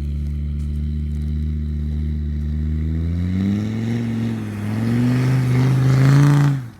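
Land Rover Discovery 2 Td5's five-cylinder turbodiesel engine running at a steady low note, then revving up and down under throttle about halfway through, loudest just before it cuts off abruptly near the end.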